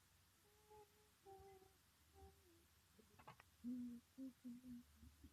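A person faintly humming a slow tune in short held notes that step up and down in pitch, with a brief click about three seconds in.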